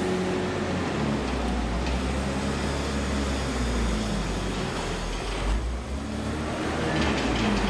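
Diesel engine of a JCB wheel loader running and working as the machine manoeuvres, its pitch shifting up and down.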